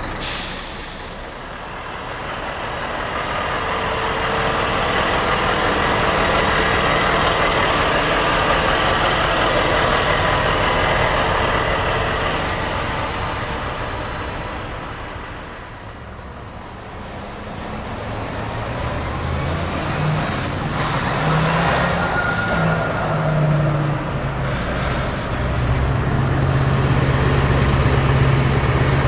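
Heavy truck tractor units driving past one after another. A diesel engine and tyre noise swell and fade as one truck passes. Then the low, steady note of another truck's big diesel grows louder as it approaches near the end.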